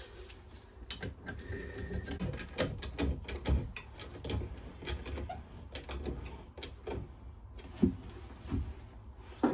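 Small metal parts being handled while a nut is worked onto a bolt: scattered irregular clicks, taps and scrapes, with a sharper knock now and then.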